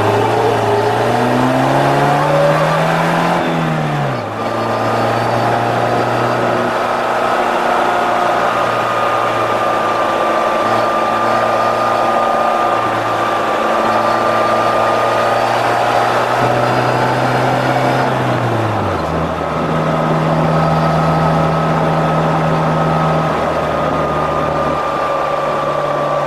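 Polaris Slingshot's engine accelerating, rising in pitch for the first few seconds, then dropping sharply about four seconds in as it shifts up. It holds a steady pitch while cruising, then shifts up once more about nineteen seconds in, all under steady wind and road noise in the open cockpit.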